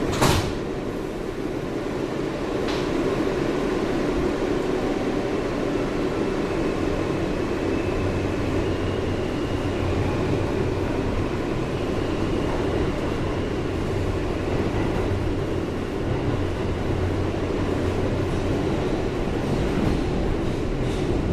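R160 subway car accelerating out of a station, heard from inside the car: a sharp clunk right at the start, then steady wheel and track rumble with the traction motors' faint whine rising in pitch as the train picks up speed.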